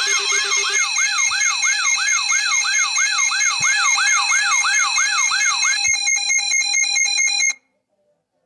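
Electronic emergency alert alarm: a warbling siren tone sweeping up and down about three times a second, layered over several steady high tones. A lower steady tone drops out about a second in, the warble gives way to a fast pulsing near six seconds, and the whole alarm cuts off abruptly about a second before the end.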